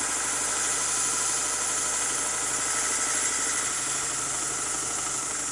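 Belt grinder driven by a third-horsepower three-phase motor, its abrasive belt running steadily against a turbine blade's undercamber: a continuous grinding hiss over a faint motor hum.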